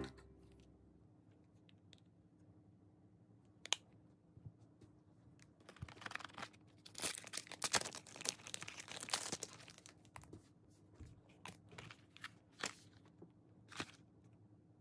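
Clear plastic film being peeled and torn off a cardboard cosmetics box, with a few seconds of crinkling about halfway through and scattered light clicks and taps from handling the box.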